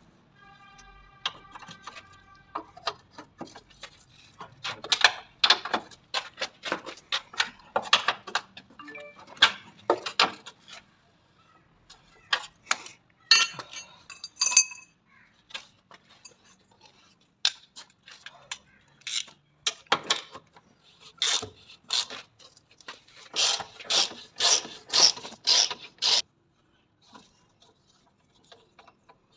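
Socket ratchet clicking and steel tools clinking while subframe bolts are worked loose under a car. Near the end comes an even run of sharp clicks, about two a second.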